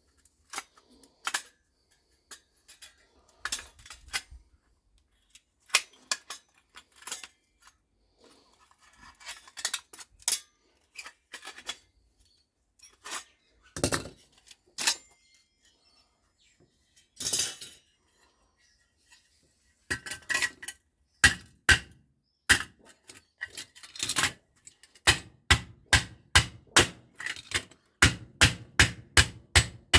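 Hammer and hand tools knocking and clinking on metal microwave scrap parts, irregular at first, then a steady run of hammer blows, about two to three a second, in the last few seconds.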